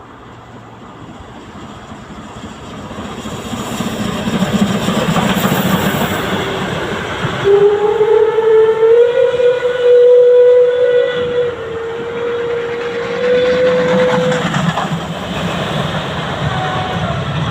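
Steam locomotive drawing closer, its running noise growing louder, then sounding its steam whistle in one long, steady blast of about seven seconds, starting about halfway in.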